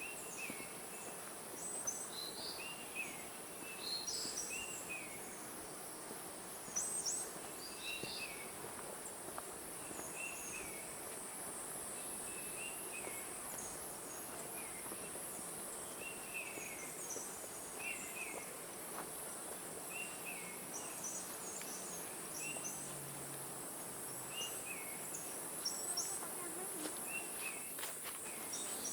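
Tropical forest ambience: a steady high-pitched insect drone, with birds giving short chirping calls over and over, about one every second or two.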